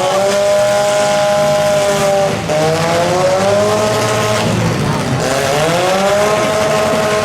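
Compact demolition-derby cars' engines run at full throttle: the pitch climbs and then holds high for a couple of seconds, three times over, over a steady rumble of other engines.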